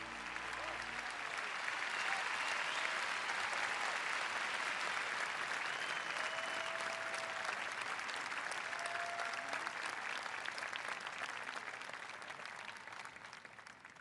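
Large audience applauding, with a few voices calling out over the clapping, as the last guitar notes die away in the first second or so. The applause fades near the end.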